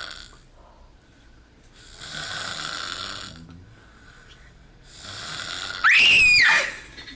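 A person snoring: three long, raspy, hissy snores about two and a half seconds apart. Near the end comes a much louder, high-pitched sound that rises sharply in pitch, holds, and then falls away.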